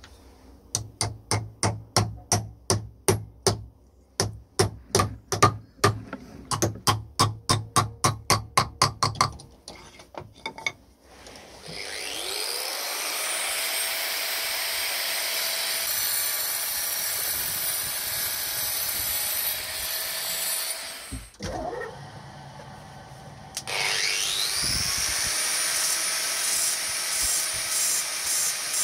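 Rhythmic back-and-forth hand-tool strokes on a workpiece, about three a second for roughly nine seconds. Then a small high-speed electric rotary tool spins up with a rising whine, runs steadily, stops, and spins up again near the end.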